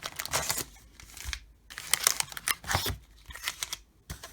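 Trading-card packs and their box packaging crinkling, rustling and tearing as they are handled, in irregular short crackles.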